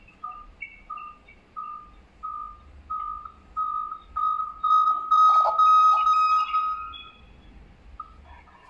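Electronic tone over the smart video doorbell's audio link between the panel and the phone: a high beep repeating about every two-thirds of a second, each note longer and louder, until it runs into one steady tone that stops near the end.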